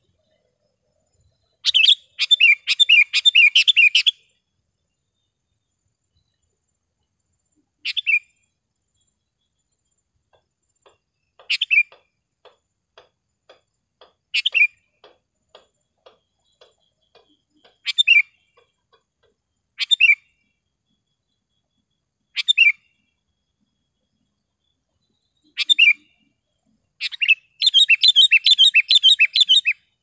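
Sooty-headed bulbul singing sharp and clear: a run of rapid notes about two seconds in, then single short calls every two to three seconds, and another long run of rapid notes near the end.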